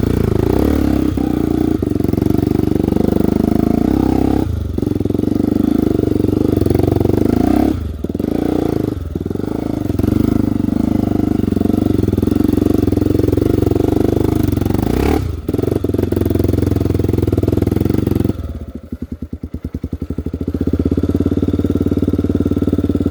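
Off-road trail motorcycle engine running hard, with brief throttle cuts. About three-quarters of the way through it falls to a slow, pulsing idle, then picks up again.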